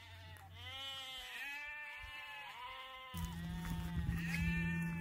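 Icelandic sheep bleating, several arched calls one after another. A low steady hum comes in suddenly about three seconds in, under a further bleat.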